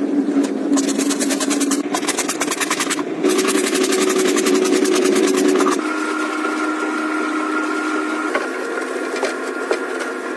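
Kitchen range hood fan running: a steady motor hum with a fast, even rattle, its pitch shifting abruptly about three and six seconds in.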